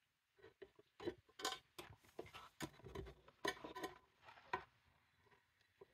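Light clicks and taps from a hand handling things on a kitchen worktop, a quick irregular series that dies away near the end.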